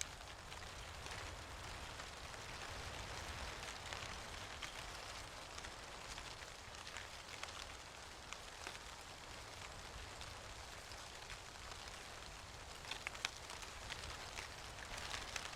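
Falling leaves: a steady soft rustling hiss with scattered light ticks and patters as leaves land, a small cluster of them near the end.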